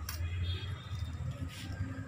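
Light metal clicks and scraping from hands working a rocker arm and its adjusting screw on a Mahindra Scorpio 2.6 diesel cylinder head while the valve clearance is rechecked, over a low steady hum.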